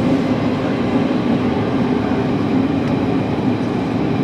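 Running noise inside a JR Kyushu 305 series electric train's motor car (MoHa 305-104) as it travels through a subway tunnel: a steady rolling noise with a low hum, no marked rise or fall.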